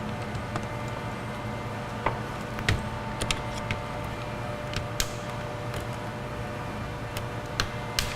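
Scattered sharp plastic clicks and taps, about ten of them, as wiring connectors are unclipped from a power window switch panel, over a steady background hum.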